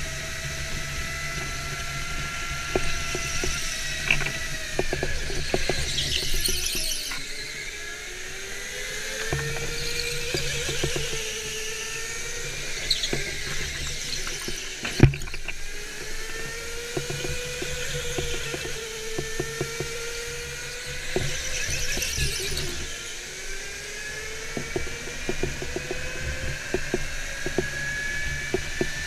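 Electric go-kart motor whining, its pitch rising and falling with speed, with tyres squealing on the concrete track through the corners. A single sharp knock comes about halfway through, the loudest moment.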